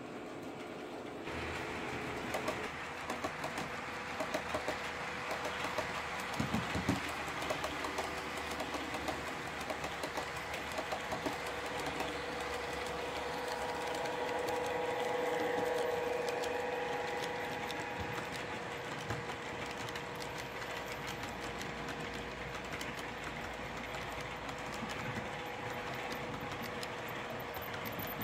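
OO gauge model class 92 locomotive hauling a container train. Its motor whine grows louder as it passes close, about halfway through, over a stream of clicks from the wagon wheels on the rail joints.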